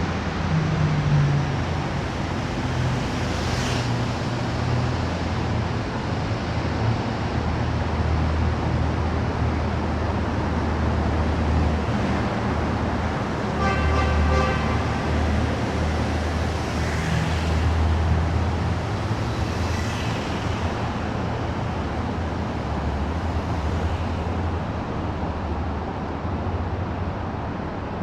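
Steady low rumble of vehicle traffic, with a brief pitched tone about fourteen seconds in.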